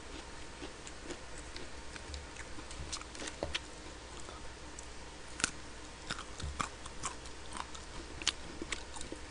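Close-up eating sounds: chewing on salad and chicken breast, with irregular sharp clicks of a fork picking at food in a plastic lunchbox tray.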